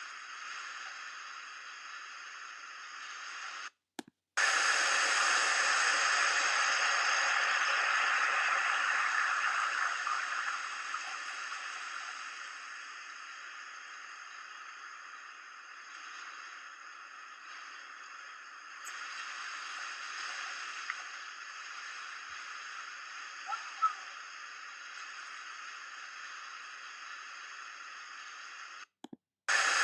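Steady static-like hissing noise, with no clear tone or rhythm. It cuts out abruptly for a moment about four seconds in and again near the end.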